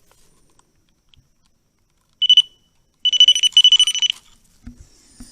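Electronic ghost-hunting device beeping as it is switched on: a short, high electronic beep about two seconds in, then about a second of broken beeping on the same pitch.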